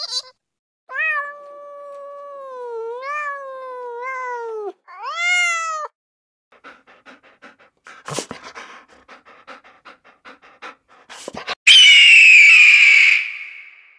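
Cat meowing twice: one long drawn-out meow, then a short rising-and-falling one. A few seconds of faint clicks follow, then near the end an eagle gives a loud, harsh, high scream with a falling pitch, lasting about two seconds.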